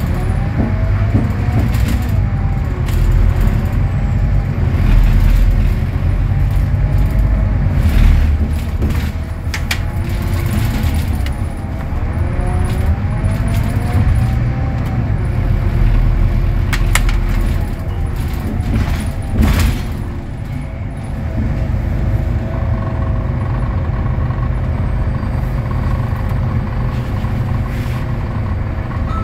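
Ride aboard a Scania K320UA articulated bus: its Scania DC09 five-cylinder diesel and ZF Ecolife automatic gearbox whine, rising and falling in pitch as the bus pulls away and slows, over heavy road rumble. A few sharp clicks or knocks come in the middle, and the sound turns quieter and steadier in the last third.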